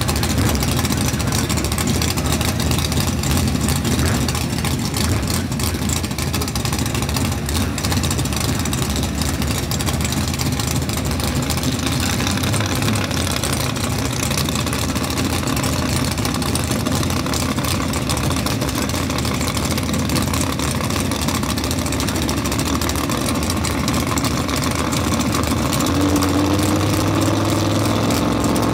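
Chevrolet Malibu drag car's race engine idling roughly and steadily at the starting line, its note changing near the end as it creeps forward toward the staging beams.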